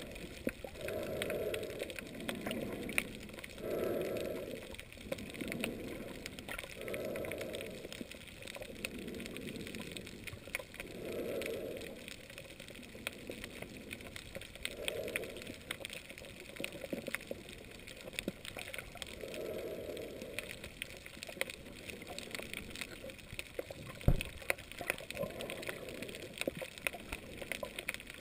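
Underwater ambience over a coral reef: a constant fine crackle of clicks, the usual sound of snapping shrimp on a reef. Soft water surges come every second or two, and there is a single sharp knock about 24 seconds in.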